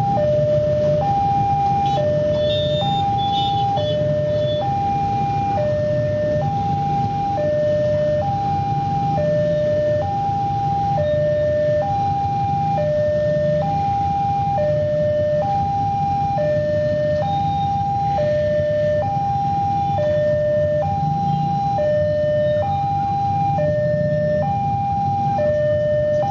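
Railway level-crossing warning alarm sounding while the barriers are down: an electronic two-tone signal that alternates evenly between a high and a low note, each held a little over half a second. Beneath it is the low rumble of waiting motorcycle engines.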